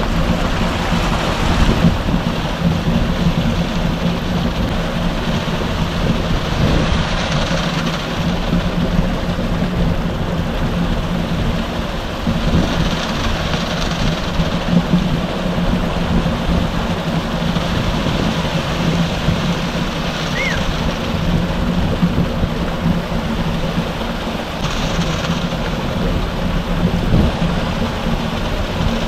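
Concrete mixer truck's engine running steadily while wet concrete pours from the truck's chute into a steel hopper. Under the hum there is a rushing slosh of concrete that swells every five or six seconds.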